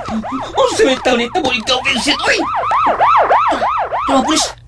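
Siren sound effect wailing in a fast rise-and-fall yelp, about three to four sweeps a second, with a brief dip near the end.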